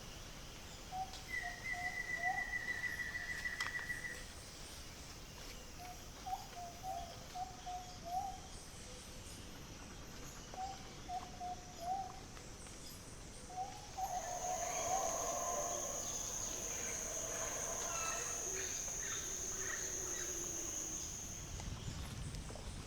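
Wild birds calling in natural ambience: short low repeated phrases and an early high whistle, then from about two-thirds through a steady high-pitched tone with many more calls layered over it.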